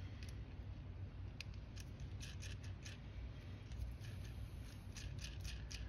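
A steel nut being threaded and spun by hand onto a freshly lathe-cut Grade 8 bolt thread: small metallic clicks and scraping, a few at first and then a quick irregular run of them from about two seconds in, over a low steady hum.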